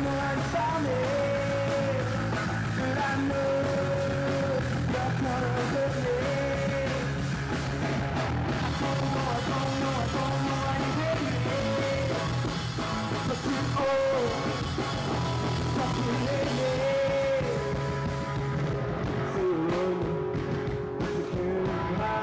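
Rock band playing live: a male vocalist sings long held notes over electric guitar, bass guitar and drums.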